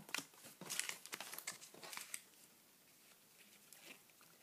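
Faint, irregular rustling and crinkling of small paper sticker packets and stickers being handled, busiest in the first two seconds and thinning out after.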